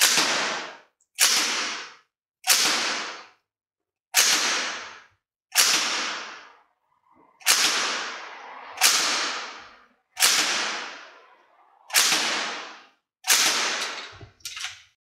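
Northeast Sten MkV gas-blowback airsoft replica, running on propane, fired in single shots: eleven sharp cracks about one and a half seconds apart, each dying away within a second.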